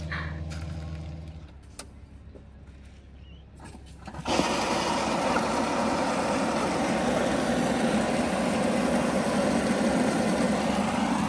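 Water from a filling-station hose rushing into a water bladder: after a few clicks of the fittings, the flow comes on suddenly about four seconds in as a loud, steady rush.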